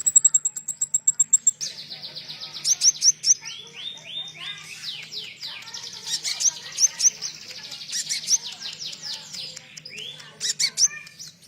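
A konin songbird singing a fast, varied song filled with cililin-style phrases. It opens with a quick run of high ticking notes, then breaks into dense rapid chirps and down-slurred whistles.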